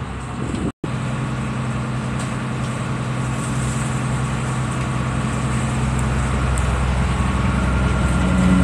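Tour boat's engine running steadily, heard on board as a low hum with a steady drone, slowly growing louder. The sound drops out for a split second just under a second in.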